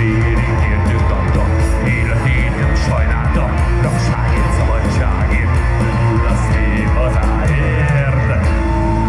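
Live rock band playing loud with electric guitars, bass and drums, heard from within the audience. Near the end the drumming stops and held notes ring on.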